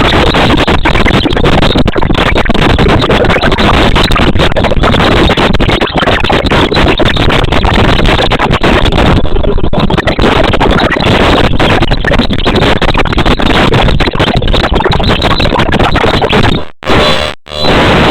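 Loud, dense background music that breaks into short stops near the end.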